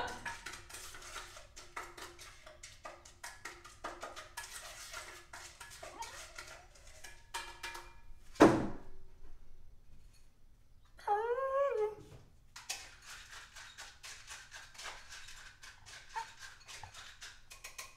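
A dog whines once, a short wavering cry of about a second, soon after a single sharp thunk; faint clicks and taps go on throughout.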